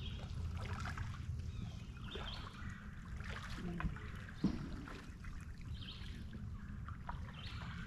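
Kayak paddle strokes with water trickling off the blade, over a steady low rumble. There is one sharper knock about four and a half seconds in.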